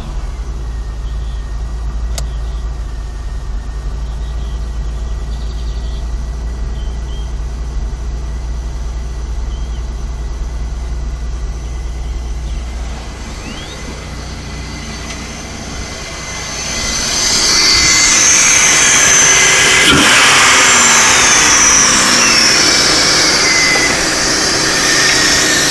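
2002 Chevy Malibu engine running at a steady idle with a low hum. After about 17 seconds a louder rushing noise takes over.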